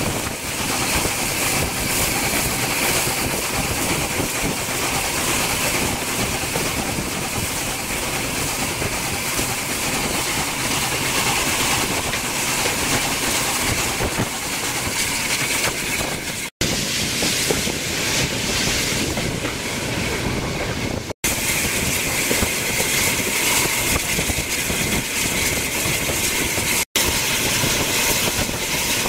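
A train running along the track, a steady rumble and rush with some hiss, broken off by abrupt cuts three times.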